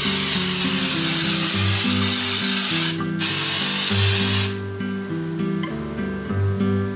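Aerosol cooking spray hissing in two bursts, a long one of about three seconds and then a shorter one after a brief pause, over acoustic background music.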